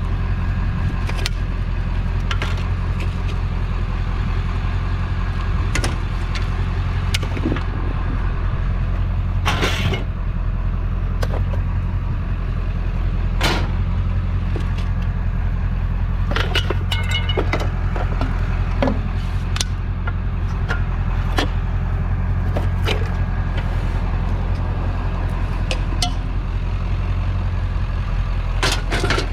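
A vehicle engine idling steadily, with scattered sharp knocks and clanks over it.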